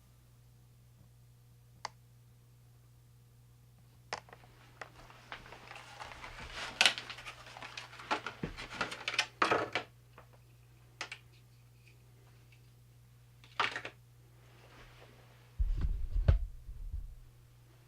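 Handling noise of work on a guitar amplifier during a speaker replacement: scattered clicks, taps and rustling of parts and tools, over a steady low hum, with a cluster of low thumps near the end.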